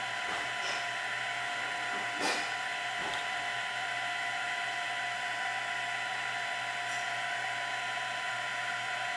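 Printrbot Play 3D printer running: a steady mechanical whine made of several high tones, with a short click about two seconds in.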